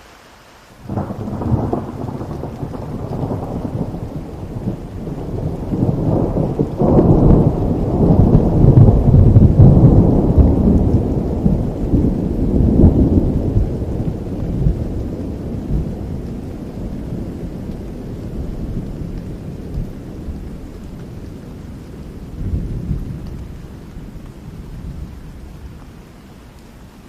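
A long roll of thunder over rain: it breaks suddenly about a second in, rumbles deep and loudest in the middle, and fades away near the end.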